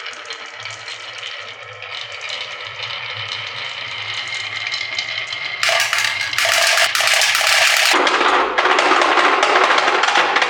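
Many marbles rolling and clattering down a HABA wooden marble-run track, a dense rattle of hard clicks. It grows louder and fuller about halfway through and again near the end.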